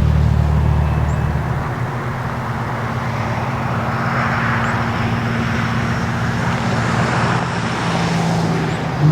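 Steady rumble of an approaching BNSF freight train's diesel locomotives, heard but not yet in sight. A lower hum beneath it drops away about a second and a half in.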